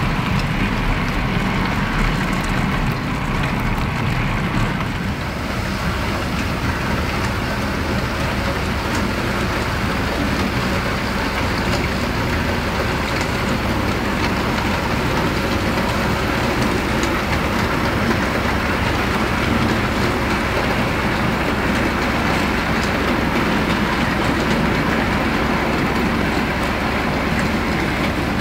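HO scale model goods train running along the track: a steady whirring and rolling noise from the locomotive motors and wagon wheels, with light clicks as the wheels pass over the rail joints.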